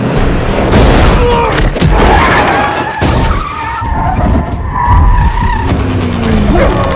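Car tyres squealing and skidding, several drawn-out squeals in a row over loud engine and road rumble, in a film car-chase sound mix.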